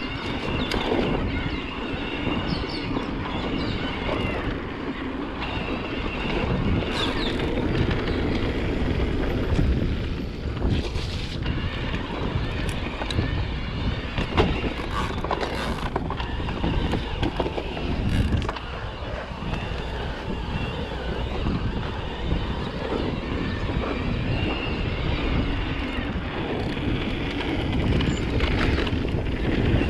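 Electric mountain bike ridden over a dirt trail: wind buffeting the microphone over the tyres' rumble, with frequent sharp knocks and rattles from the bike over rough ground.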